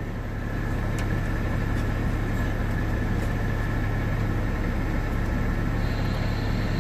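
Steady static hiss from a Galaxy DX 47HP CB radio on receive, raised by interference from a USB phone charger just plugged into the truck's power port, over a steady low hum. The hiss grows slightly louder about half a second in.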